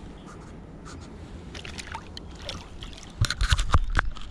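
A low steady rumble, then a quick burst of sharp knocks and clatter about three seconds in.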